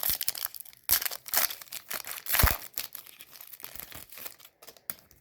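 Irregular crinkling and rustling from hands working through trading cards and their foil pack wrapper, with louder crinkles about a second in and again near the middle.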